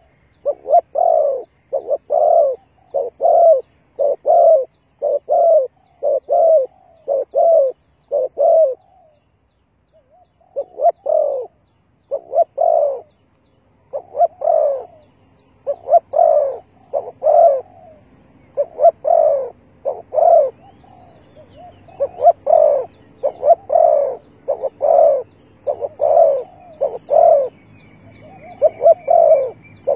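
Spotted doves cooing: a long run of short, low coos, about two a second, that breaks off briefly about nine seconds in and again a few seconds later, then carries on.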